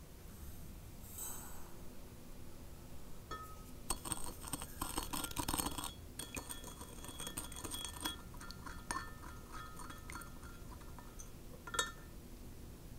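Granulated sugar poured into a glass Pyrex measuring cup of liquid with a brief soft hiss, then a stirrer clinking and scraping against the glass as the liquid is stirred. The clinks ring and come thickest for a couple of seconds in the middle, then thin out, with one sharper clink near the end.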